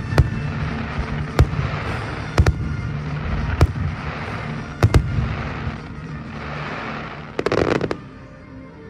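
Aerial fireworks bursting, with a sharp bang about once a second over a steady crackle. Near the end comes a quick cluster of pops, and then the sound falls away.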